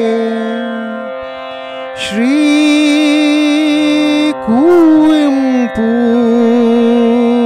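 Slow Carnatic-style devotional singing of a Sanskrit hymn. Long held notes waver and slide into new pitches over a steady drone.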